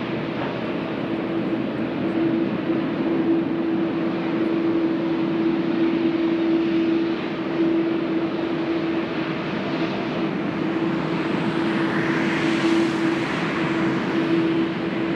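Twin-engine widebody jet airliner on its takeoff run and climb-out, a continuous jet roar with a steady low hum, swelling to a peak with a higher rushing whine about twelve to thirteen seconds in, then easing.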